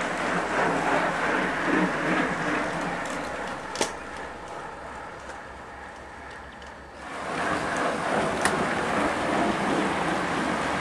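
A road cycling race going past: noise of passing riders and their accompanying vehicles, dying down about four seconds in and building again about seven seconds in, with one sharp click shortly before the lull.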